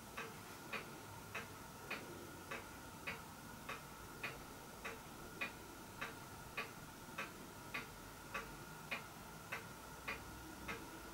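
Clock ticking steadily and faintly, a little under two ticks a second, over a faint steady whine.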